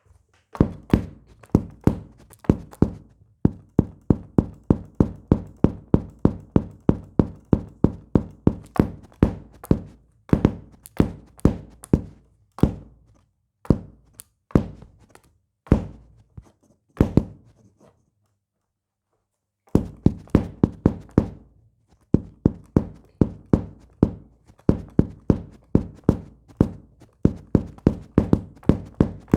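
Bass drum struck over and over by a 3D-printed kick pedal's beater: rapid low thumps, several a second, in runs with short breaks and one pause of about two seconds past the middle.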